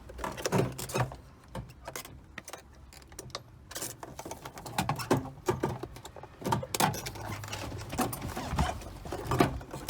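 Hands working plastic quick-connect fuel-line fittings loose on a car's fuel pump assembly: scattered clicks, knocks and rattles.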